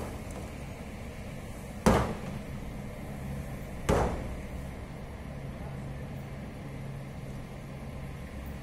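Two sharp bangs about two seconds apart, each dying away quickly, over a steady low hum.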